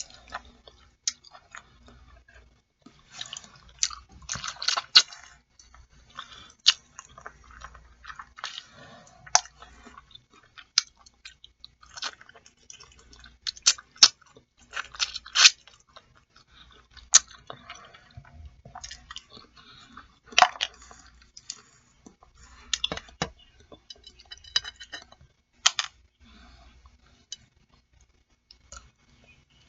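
Chewing and mouth sounds from eating boiled chicken feet: irregular wet smacks and sharp clicks.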